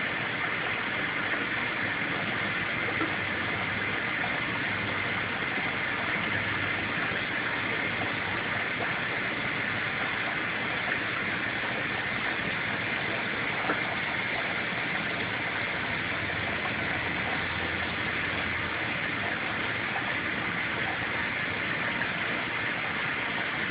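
Aquarium filter running: a steady rush of moving water over a faint low motor hum.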